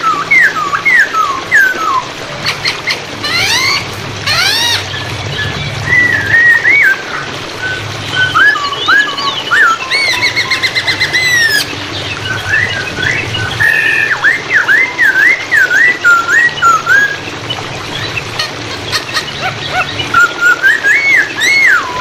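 Poksay hongkong (a laughingthrush) singing loud, varied whistled phrases that slur up and down in quick runs with short pauses, over a steady rush of flowing water.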